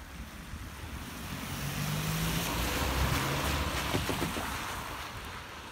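A car drives past over the level crossing. Its tyre and engine noise swells to a peak about three to four seconds in, then fades.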